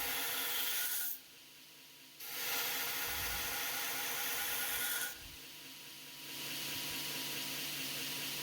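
Stainless steel kitchen knife blade being reprofiled on an abrasive sharpening tool: a steady grinding hiss, which drops out for about a second near the start and dips again around five seconds in before resuming.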